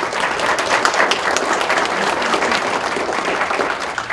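Small audience applauding, a dense patter of many hands clapping that begins to die away near the end.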